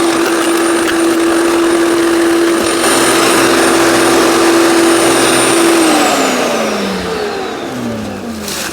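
15-amp electric wood chipper shredder running with a steady high motor whine, grinding through branches louder from about three seconds in. Near the end the motor's pitch falls steadily as it slows down.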